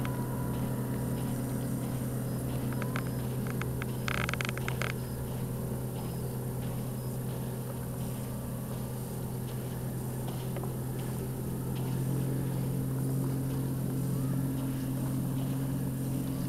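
A steady, low engine drone that grows a little louder about twelve seconds in. A short cluster of sharp clicks comes about four seconds in.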